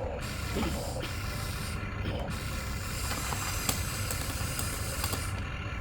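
Remote-control toy excavator's electric motors and gearboxes running steadily, with scattered sharp clicks from its moving parts.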